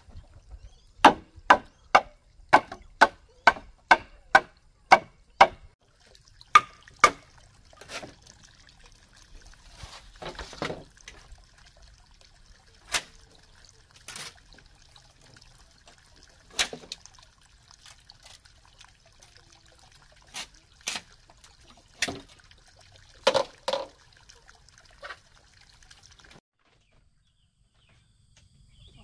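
Bamboo being chopped: a quick run of about a dozen sharp strokes, roughly two or three a second, over the first five seconds. Slower, irregular single strikes follow with longer gaps between them.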